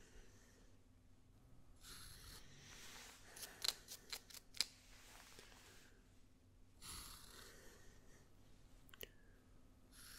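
Close-miked hair trimmer handled quietly by the head: soft brushing hisses, with a quick run of about six sharp clicks a little over three seconds in and a faint click near the end.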